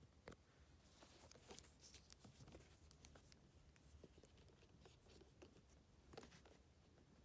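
Faint handling sounds of a leather handbag and its packaging: soft rustles and light scattered clicks, with one sharper click about three seconds in.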